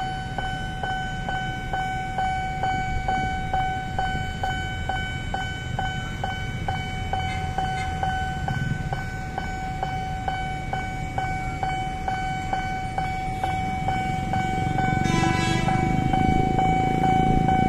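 Level-crossing warning bell ringing steadily: one held tone struck with a regular beat about three times a second. Near the end the rumble of an approaching electric commuter train grows louder, and a short horn sounds about fifteen seconds in.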